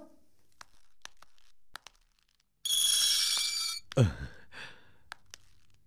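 Electronic doorbell ringing once for about a second, a little past the middle. A short, loud sound falling in pitch follows right after it. A few faint clicks come before the bell.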